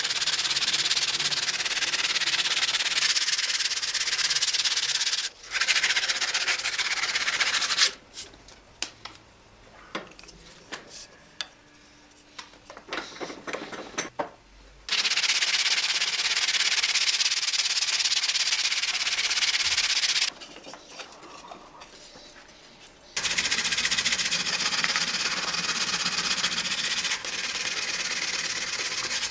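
Sandpaper rubbed by hand over a wooden saw handle in a steady scratchy hiss. The sanding stops for a quieter stretch of separate short scrapes and knocks from about eight to fifteen seconds in, then comes back. It pauses briefly again a little past twenty seconds.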